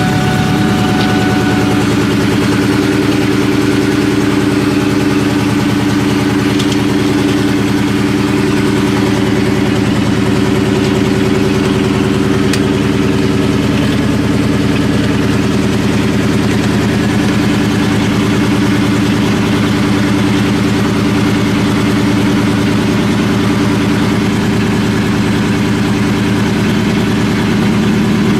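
Supercharged New Edge Mustang GT's 4.6-litre two-valve V8 idling steadily through a catless X-pipe and Borla ATAK exhaust, just after its first startup following a shop tune. The idle settles a couple of seconds in, then holds. The car came back from the shop misfiring.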